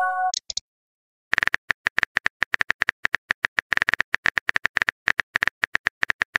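A short electronic new-message chime at the very start. After a brief pause, a fast, steady run of phone-keyboard typing clicks, several taps a second, as a text message is typed out.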